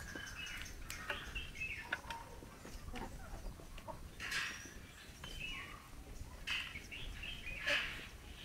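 Chickens clucking and making short calls while feeding, with louder calls about four seconds in and again near the end.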